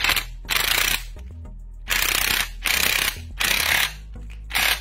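Cordless impact wrench hammering in about six short bursts, each around half a second long, as it runs the piston nut down tight on a hydraulic cylinder rod.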